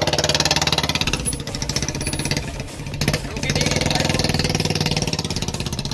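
Royal Enfield Bullet 350's single-cylinder four-stroke engine running with a fast, even beat, easing off briefly about a second in and picking up again at around three seconds.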